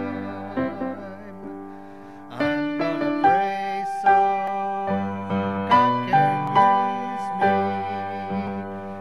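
Grand piano playing a slow hymn tune, notes and chords struck and left ringing; it eases off about two seconds in, then comes back with fuller chords.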